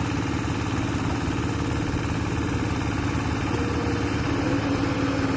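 Diesel engine of earthmoving machinery running steadily with a fast even throb, and a steady whine joining about four seconds in.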